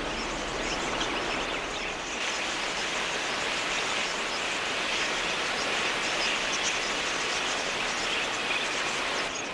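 A large flock of wild budgerigars chattering, many birds chirping at once in a steady high twittering wash.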